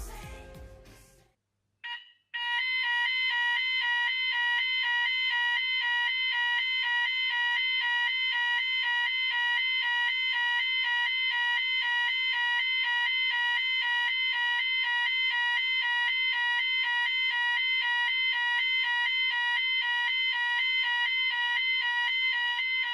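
Background pop music fades out in the first second. About two seconds in, a fire alarm sounder on a Gent Vigilon system starts a loud, steady electronic alarm tone that alternates rapidly between two pitches.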